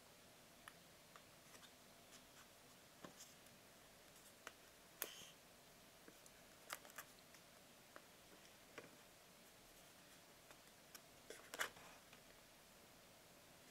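Near silence broken by faint, scattered clicks and taps of a smartphone's retail box being handled and turned over, with a small cluster of louder ones about two-thirds of the way through.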